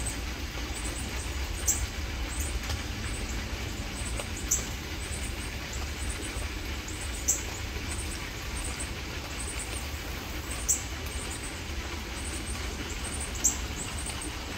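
Steady hiss and low rumble of rain falling, with a bird's short high chirp repeating about every three seconds.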